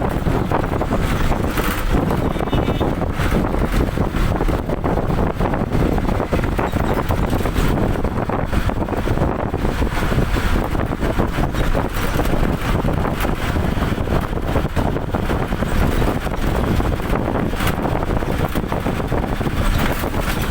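Steady wind buffeting the microphone over a low, continuous rumble of travel.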